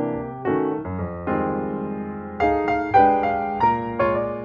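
Instrumental piano music: chords and melody notes struck about every half second, each fading before the next.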